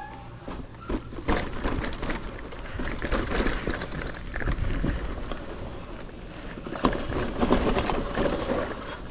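Mountain bike riding over a bumpy dirt and grass trail: steady rolling noise with frequent knocks and rattles from the bike over the bumps.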